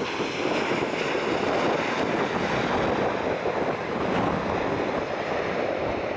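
Boeing 777-200ER jet engines on the landing rollout: a steady, loud jet roar with a faint high whine over it.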